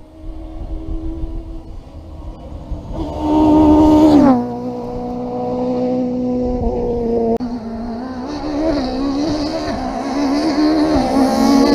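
Peugeot 306 Maxi Kit-Car rally car's engine at high revs on a stage. The note swells to its loudest about three to four seconds in, then drops sharply in pitch and runs on at steadier revs, rising again near the end.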